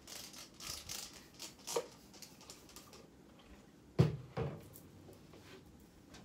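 Small items rustling and clicking as they are handled at a dresser drawer, then a loud knock about four seconds in with a softer one just after.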